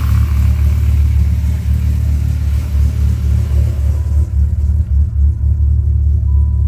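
Freshly rebuilt Dodge Viper V10 engine idling steadily, a deep, even running note.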